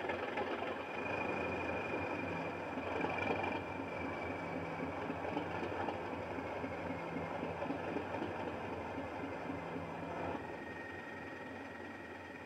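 Sound decoder in a Bachmann OO-gauge Class 37, playing South West Digital's sound file of the English Electric diesel idling through a small EM2 speaker, with a thin high whistle over the engine note. About ten seconds in, the sound gets quieter and the whistle drops to a lower pitch.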